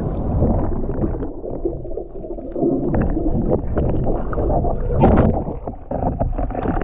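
Water sloshing and splashing around the microphone, over a rough low rumble of wind buffeting, with a stronger splash about five seconds in.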